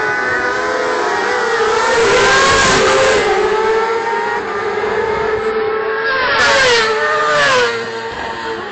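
Several racing motorcycles passing at speed, their engines at high revs, with the pitch sliding up and down as they change gear. It swells twice, loudest about two and a half seconds in and again about seven seconds in.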